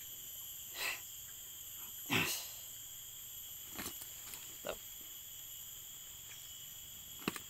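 Steady chorus of insects shrilling in several high, unchanging tones, with a few short, sharp handling sounds over it; the loudest comes about two seconds in.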